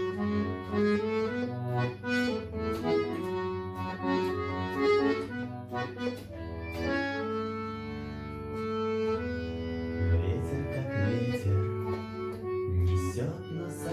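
Garmon (Russian button accordion) playing a rock tune by ear over a steady beat.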